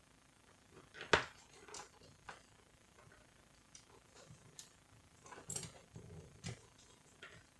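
Scattered clicks and taps of plastic and metal parts and wiring being handled on a copier fuser assembly, the sharpest about a second in and a cluster of them from about five to six and a half seconds in.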